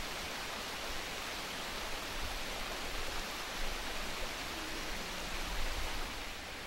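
Steady rush of fountain water splashing into a pond, with a low rumble underneath.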